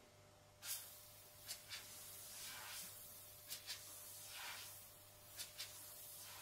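Airbrush hissing in short spurts as its trigger releases air and paint: several brief puffs, often two in quick succession, with a few softer, longer hisses between. A faint steady hum runs underneath.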